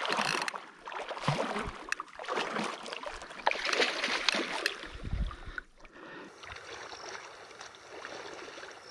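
Water splashing and sloshing as a hooked carp thrashes in the shallows while it is landed, in irregular surges. About six seconds in the splashing stops and only a quieter steady background remains.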